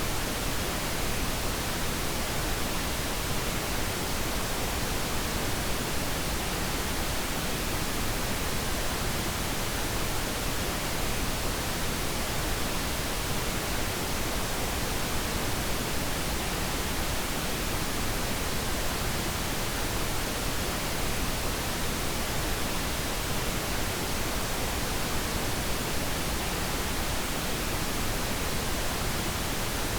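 Steady, unchanging noise hiss spread evenly from low to high pitches, a synthetic sleep-aid noise track meant to help a listener fall asleep.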